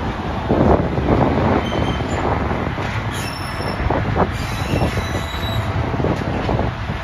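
Train wheels rumbling on the rails as passenger coaches run slowly into a station platform, with faint high-pitched wheel squeals.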